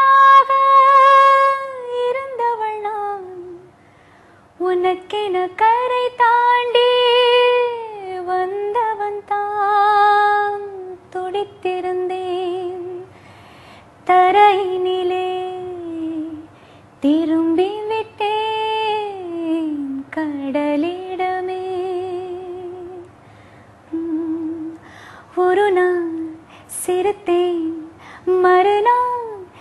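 A woman singing solo without accompaniment. She holds long notes with slides between pitches and vibrato, in phrases of a few seconds with short breaks for breath.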